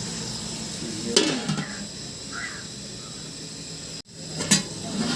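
Chicken curry sizzling in a pan as it is stirred, with a metal spoon knocking against the pan twice.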